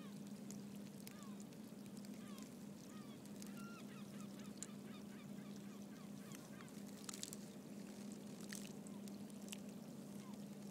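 Faint calls of waterbirds: scattered short calls, then a quick run of them about three to five seconds in. Under them runs a steady low hum, with scattered sharp clicks in the second half.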